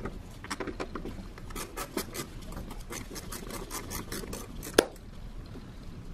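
A T20 Torx driver clicking in quick runs as the two screws holding a mass airflow sensor are turned out, with one sharp click about five seconds in. After that it goes quieter.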